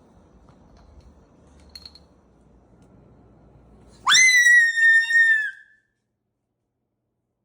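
A loud, shrill animal call about four seconds in: it sweeps sharply up in pitch, holds steady for about a second and a half, then cuts off.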